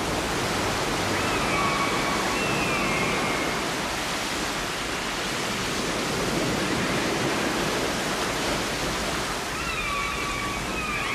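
A steady rushing noise like water or surf. Faint high tones step downward twice over it, once a couple of seconds in and again near the end.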